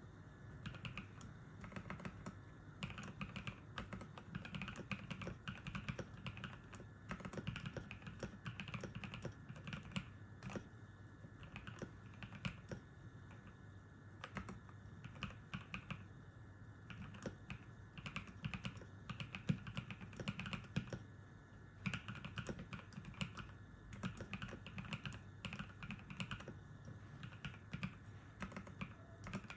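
Continuous typing on a Cyberboard mechanical keyboard with NovelKeys x Kailh Cream linear switches lubed with Krytox 205 g0, milk keycaps and Durock stabilizers: a dense, steady run of key clacks with a few heavier strikes mixed in.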